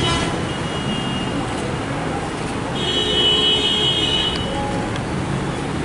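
Steady rumble of vehicle noise, with a high-pitched squeal from about the middle that lasts a second and a half.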